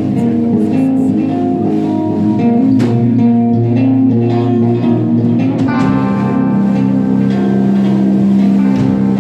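Live metal band music led by guitar, with sustained notes ringing and changing every second or so.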